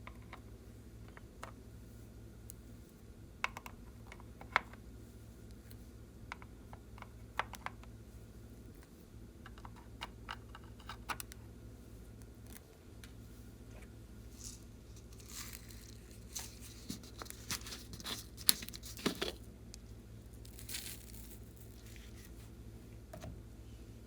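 Hands working slime: scattered sticky pops and clicks, with a denser run of crackling in the second half, over a low steady hum.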